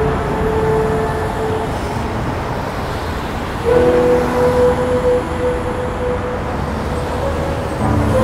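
City street traffic noise with car horns held: one honk for about two seconds at the start, and a louder one from about four seconds in that lasts around four seconds and fades.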